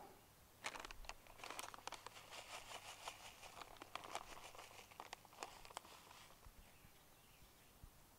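Faint crinkling and rustling of a plastic container and soil handled by hand while planting, a quick irregular run of small clicks that thins out after about six seconds.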